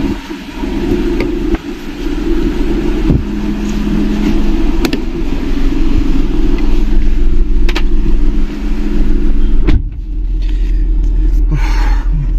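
Volkswagen Polo TDI diesel engine idling steadily with the AC compressor clutch engaged and the radiator fan running. A car door shuts about ten seconds in, and after that the engine is heard muffled from inside the cabin.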